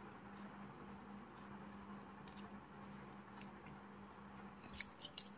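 Faint scraping and ticking of a cheese cube rubbed over a flat metal hand grater, with a few sharper clicks near the end, over a steady low hum.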